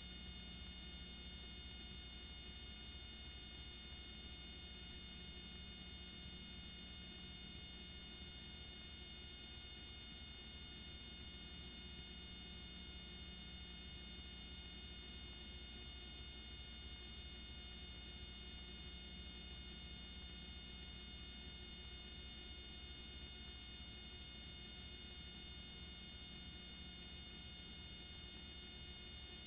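Steady electrical hum and buzz with a high-pitched whine and hiss, unchanging throughout: line noise of the recording equipment, with no programme sound over it.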